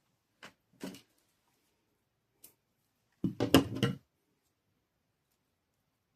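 Craft materials being handled on a work surface: a few short knocks and rustles, then a louder clatter of several quick knocks about three seconds in.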